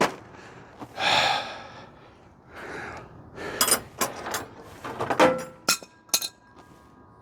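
Metal parts and tools being handled and set down: a sharp click, a short rushing noise about a second in, then a quick series of knocks and clinks, some with a brief metallic ring. Wind chimes start ringing near the end.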